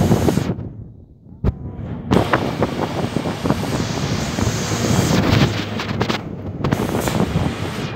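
Wind buffeting a microphone held at the open window of a moving bus, in irregular thumping gusts over the road and engine noise. The buffeting drops away briefly about a second in, then returns.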